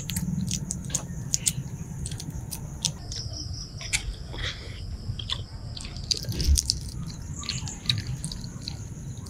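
Close-up eating of balut (boiled duck egg): wet mouth clicks, biting and chewing, with small cracks of eggshell being picked off by fingers. A steady high-pitched drone runs in the background.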